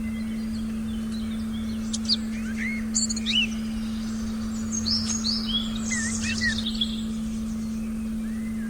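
Forest birds chirping and whistling in short quick calls, mostly between about two and seven seconds in. Under them runs a steady, unbroken low tone, the meditation frequency.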